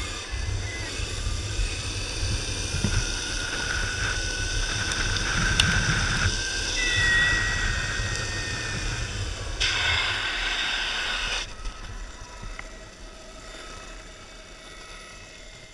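Electric longboard rolling on asphalt: low rumble of the wheels on the road with wind on the microphone, and a thin high whine from its electric motor that rises in pitch as the board speeds up. The rumble and whine drop away after about eleven seconds as the board slows.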